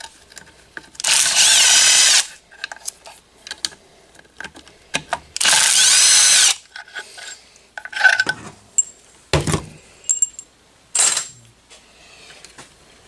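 A power tool runs in two bursts of about a second each, its pitch sliding as it spins out bolts on the cylinder head of a Polaris Ranger 900 XP engine. Short metallic clicks and clinks of the tools and bolts fall in between.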